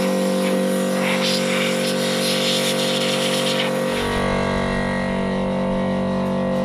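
Air compressor running with a steady, even hum, and a paint spray gun hissing in short bursts during the first half. A low rumble comes in about four seconds in.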